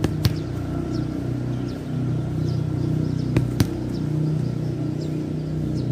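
Football struck with the outside of the foot on grass: a sharp thud about a third of a second in, then two more in quick succession a little past three seconds. A steady low rumble runs underneath.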